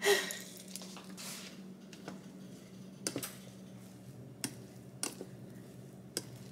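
A plastic rice paddle stirring cooked rice in a rice cooker's inner pot: a louder knock right at the start, then a few faint, scattered clicks and taps against the pot, over a steady low hum.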